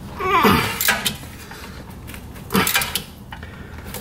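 Hand tools clinking on metal as a bolt on a 2004 Honda Accord's front suspension is worked loose with a wrench. About half a second in comes a short creak that falls in pitch, and a second clatter follows about two and a half seconds in.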